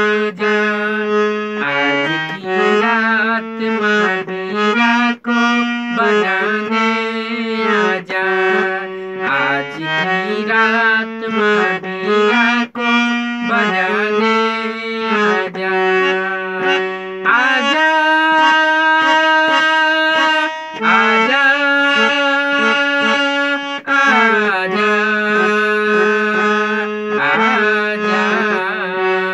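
Harmonium playing a devotional melody in held, reedy notes, with a man singing along in long, gliding, ornamented phrases.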